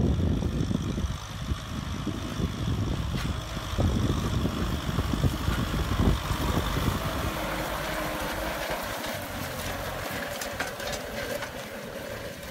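Kubota M6040SU tractor's diesel engine running under load as it pulls a disc plough through dry paddy soil. The low engine sound is strong at first and weakens about halfway through.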